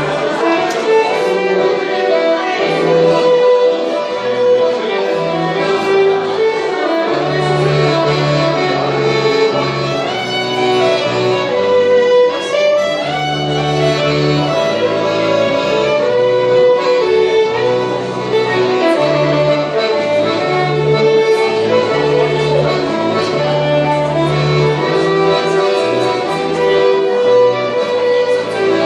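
Three fiddles and a button accordion playing a tune together live, the fiddles carrying the melody over low accordion notes that change every second or so.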